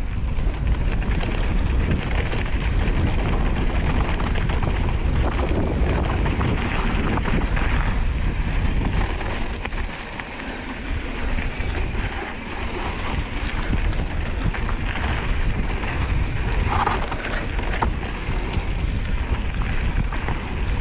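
Specialized Stumpjumper mountain bike ridden fast down a dirt singletrack: wind buffeting the handlebar camera's microphone, over tyre noise on the dirt and constant chatter and rattling from the bike. It eases briefly about halfway through.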